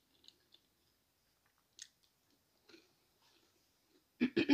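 Close-miked chewing of a fried jalapeno cheddar bite: a few faint, scattered wet mouth clicks, then a louder burst of chewing mouth sounds near the end.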